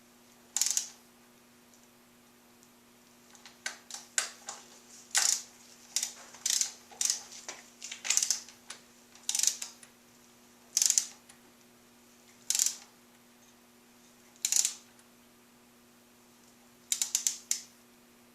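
Hand ratchet wrench clicking in short bursts of ratcheting strokes, about a dozen spread out with pauses between, as bolts on the forks are run in, most likely the fork pinch bolts.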